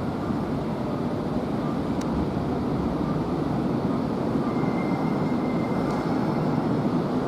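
Kintetsu electric train running through a station, a steady rumble of wheels and motors, with a faint high tone about two-thirds of the way in.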